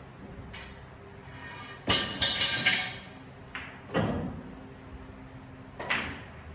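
Billiard balls clacking on a table: a loud sharp strike about two seconds in, then a quick run of clicks as the balls collide, followed by single knocks around four seconds and again near the end.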